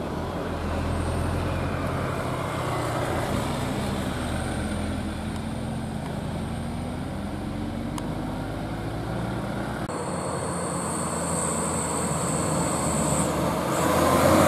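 Road traffic passing: a motor scooter, light trucks and a small car drive by with engines running, their engine pitch gliding up and down. Near the end an Isuzu Elf light truck's diesel engine comes closer and gets louder.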